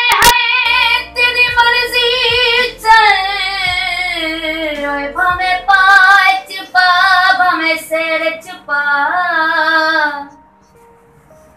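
A woman singing a Saraiki song in long, wavering held phrases with short breaks between them. She stops about a second before the end.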